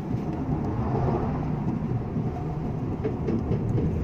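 Mitsubishi Mirage car driving along, heard from inside the cabin down by the pedals: a steady low rumble of road and engine noise.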